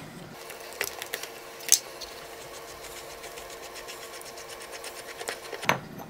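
Metal handle assembly of a Kohler Revival lavatory faucet being unscrewed by hand from the valve: a fast run of faint fine ticks as the threads turn. A few sharper clicks and clinks come about a second in and again near the end.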